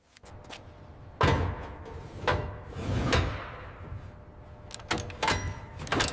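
A series of irregular heavy knocks and clunks over a low rumble, the loudest about a second in, with several more spaced a second or so apart.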